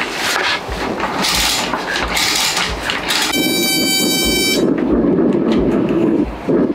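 Wooden table panels clattering as they are fitted together, then a round convection kerosene heater's igniter buzzing for about a second, and the burner catching with a steady rushing sound.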